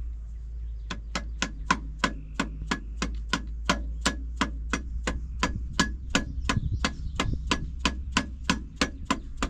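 Quick, light, evenly spaced hammer taps, about three and a half a second, starting about a second in, driving a ringed piston through a 3D-printed plastic ring-compressor sleeve down into a 12-valve Cummins cylinder bore. A steady low hum runs underneath.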